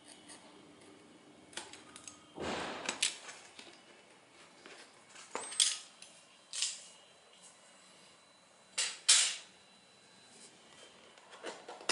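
A utility knife cutting the seal on a cardboard phone box, with a scrape about two and a half seconds in and a few short, sharp swishes and clicks from handling the box.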